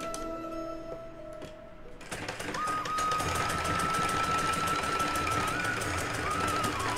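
Sewing machine stitching a straight seam through fabric, easing off briefly about a second in and then running steadily and louder from about two seconds in.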